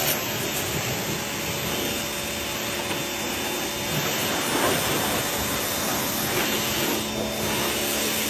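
A motor-driven machine running steadily, a hiss over a low hum.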